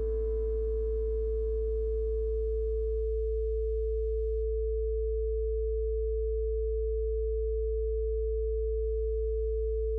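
Steady pure sine tones used as a sound-therapy frequency: a low 55 Hz hum under a higher held tone. Faint soft music underneath fades out about three to four seconds in, leaving only the tones.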